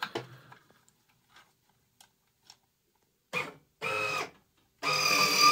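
Electric linear actuator motor whining as it drives the droid's centre foot. It starts and stops in two short bursts about three and a half and four seconds in, then runs steadily from about five seconds in. It is powered straight from a 20 V tool battery, a voltage it isn't meant for.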